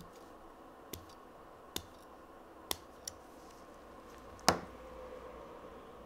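Swiss Army knife scissors snipping a fingernail: a handful of short, sharp clicks a second or so apart, with a louder click about four and a half seconds in.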